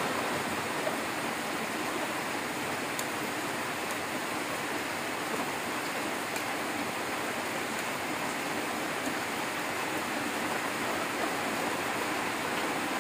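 Diced duck meat sizzling in oil in a pan over a wood fire: a steady hiss with a few faint ticks.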